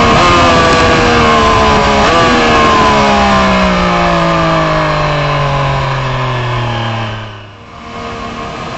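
Triumph Street Triple RS inline-triple engine winding down as the bike slows, its pitch falling steadily over about seven seconds with two short jumps up as it is shifted down. About seven and a half seconds in the engine sound drops away, leaving a steadier background noise.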